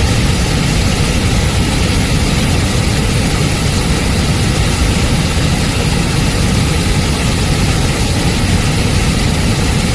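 Waterfall: a loud, steady rush of falling water that never lets up, heaviest in the low end.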